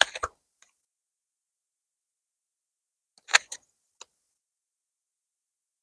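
Tarot cards being handled: two short clusters of sharp clicks and taps about three seconds apart, with a single faint tick just after the second.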